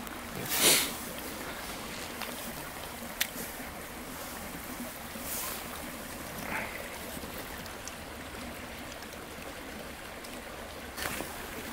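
Water of a small creek flowing steadily, with a brief burst of noise about half a second in and one sharp click about three seconds in.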